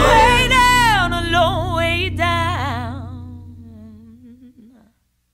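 A singing voice glides down into a long held final note with wide vibrato over a low sustained accompaniment, the whole fading and dying away near the end.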